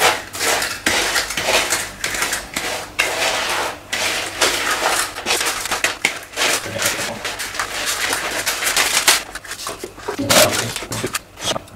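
A utensil scraping and clinking against a bowl while chocolate-coated Rice Krispies are scooped out, with the crackle of the cereal, in a busy run of short scrapes and taps.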